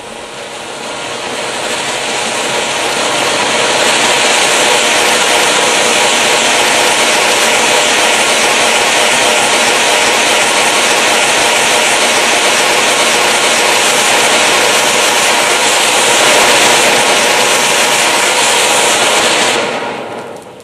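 Flower pot firework, a small cone fountain, spraying sparks with a steady loud hiss that builds over the first few seconds, holds, then dies away near the end as the fountain burns out.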